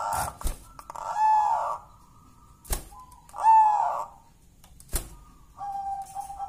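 Caged zebra dove (perkutut) cooing: two short coos a couple of seconds apart. Two sharp clicks fall between and after them, and a steady, even tone starts near the end.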